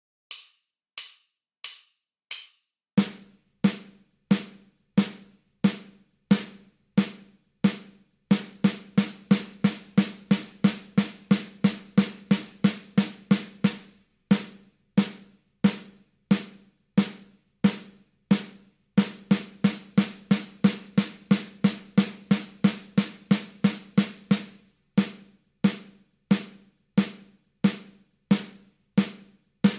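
Four faint clicks count in at 90 beats a minute. Then a snare drum plays evenly spaced single strokes: two bars of quarter notes, about one and a half hits a second, then two bars of eighth notes at twice that rate. The pattern repeats.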